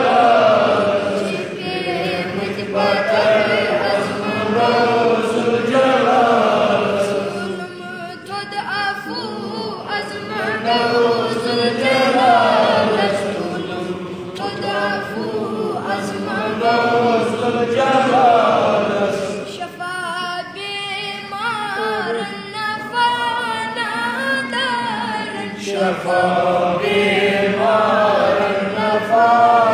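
A young boy singing a hamd, a devotional song of praise to God, in Kashmiri, in long melodic phrases with held, wavering notes.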